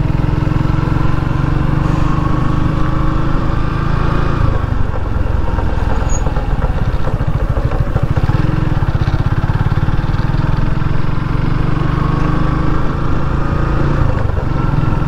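Motorcycle engine running on the move, heard from the bike itself. The engine note eases off about four and a half seconds in and picks up again a few seconds later, with a faint rising whine as it accelerates.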